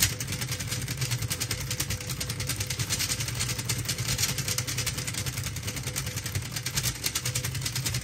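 Stepper motors of a home-built Rubik's Cube solving robot turning the cube's faces in quick succession while it solves the cube: a fast, continuous clatter of clicks over a steady motor hum.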